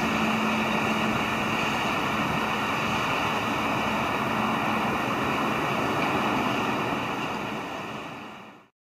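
Steady outdoor wind and traffic noise with a faint low hum, fading out over the last two seconds.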